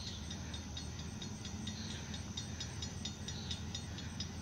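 Low rumble of an approaching freight train's diesel locomotives, still some distance off, with a steady run of high ticks, about four to five a second, over it.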